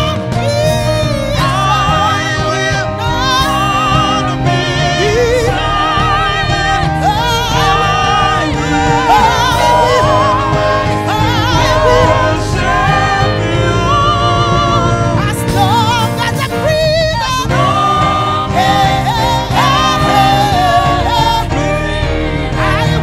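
Live gospel praise music: women singing lead and backing vocals with heavy vibrato over a band with drums.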